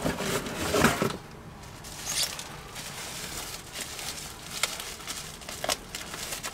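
Plastic bubble wrap rustling and crinkling as it is handled and pulled open, with a few light ticks. Louder handling noise in the first second.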